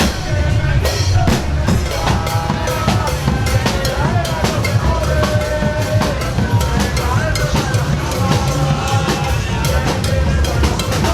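Loud music with a driving drum-kit beat of bass drum and snare hits, and held melody notes over it.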